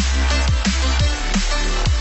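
Electronic background music with a deep sustained bass and a steady kick-drum beat.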